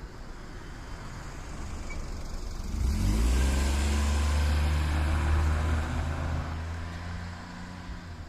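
A road vehicle's engine passes close by. It swells in, its pitch climbs briefly as it accelerates about three seconds in, runs steadily for a few seconds, then fades away.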